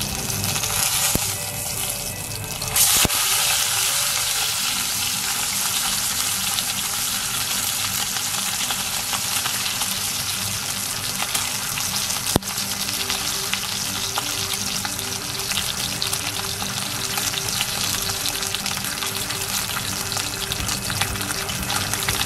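Tied pork belly roll sizzling steadily in hot fat in a cast-iron pot over medium heat, its surface being seared crisp before braising. A single sharp click sounds about halfway through.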